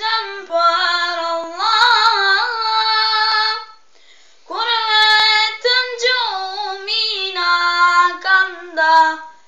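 A high solo voice singing an ilahi, an Albanian Islamic devotional song, unaccompanied. It holds long, ornamented notes, with a short breath pause about four seconds in.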